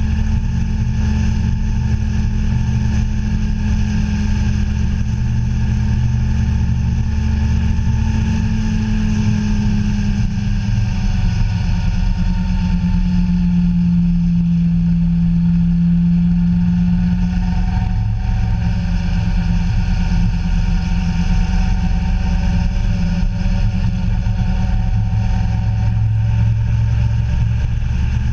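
Vehicle engine running steadily while driving along a road. Its pitch drops a little about ten seconds in and rises again about seven seconds later.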